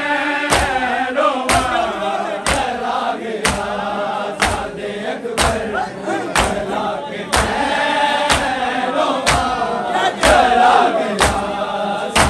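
Group of men chanting a Punjabi noha in chorus, with a sharp slap about once a second keeping the beat: the matam of hands striking chests in time with the lament.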